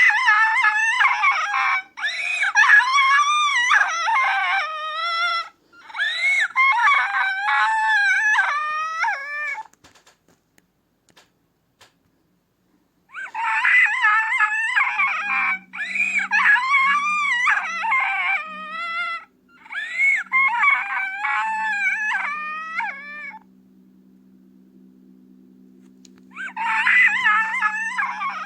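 High-pitched wailing cries in long bouts that bend up and down in pitch, a cartoon-style crying sound effect. They break off for about three seconds some ten seconds in and again near the end, and a low steady hum comes in about halfway through and stays under the later cries.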